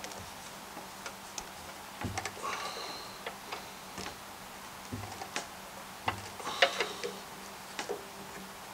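Needle-nose pliers clicking and scraping against a rusted spring clip on a fuel line: scattered light metallic ticks, with a brief ringing scrape about two and a half seconds in and another near six and a half seconds.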